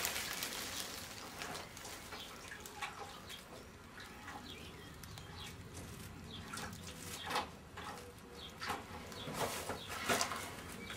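Faint rustles and a few light, irregular knocks from a plastic tub being handled and a small pony shifting on straw bedding in a wooden stable.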